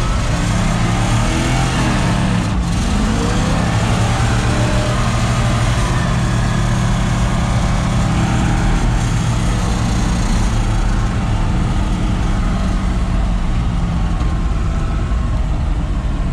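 1966 Chevrolet C10's small-block V8 running through a single straight-pipe exhaust as the truck drives. The engine pitch dips and climbs again about two to four seconds in, like a gear change, then holds a steady cruising drone.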